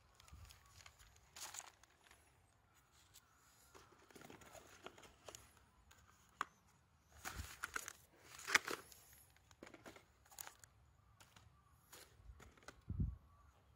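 Newspaper rustling and crinkling as a stack of newspaper and a boxed roll of aluminium foil are handled, with scattered small clicks and knocks. The loudest rustle comes about eight and a half seconds in, and a low thump follows near the end.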